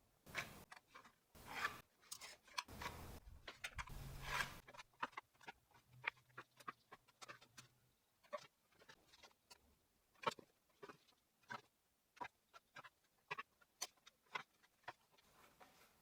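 Faint pencil strokes scratching across pine boards, with light clicks and taps of a square being set down and moved, as lines are marked out. A few longer scratches come in the first five seconds, then only scattered ticks.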